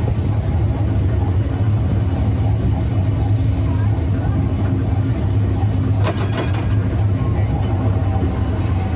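Vintage Type A tram running along the track: a steady low rumble from the motors and wheels on the rails, with a brief rattling clink about six seconds in.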